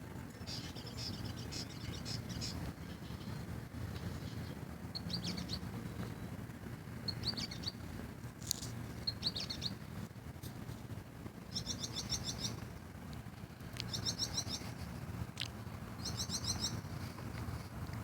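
Small birds calling: quick chattering runs of high notes, each under a second, repeated several times with single short chips in between, over a steady low hum.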